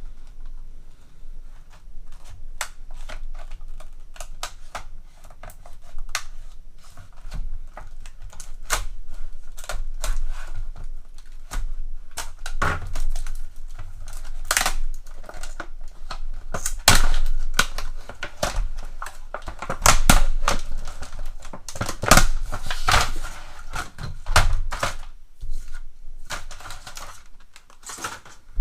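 Retail packaging being pulled off a boxed drill bit set: many irregular sharp cracks and clicks with crinkling and tearing, busiest in the middle and latter part.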